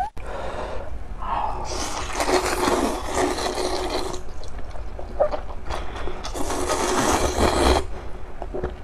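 Person slurping Chongqing xiaomian noodles from a cup of chili broth: two long slurps, the first about two seconds in and the second in the latter half.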